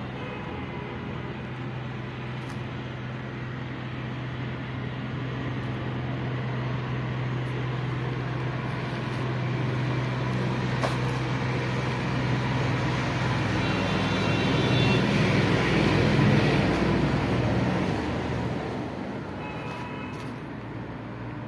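Steady engine hum with road traffic noise, swelling louder about three quarters through and easing off near the end.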